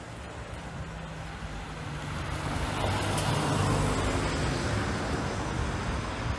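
A car driving past on a wet street: a low engine hum with tyre hiss that grows louder to a peak about three to four seconds in, then eases off a little.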